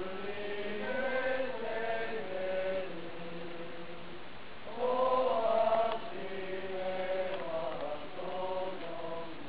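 A group of people singing a slow song together in long held notes, swelling louder for about a second around the middle.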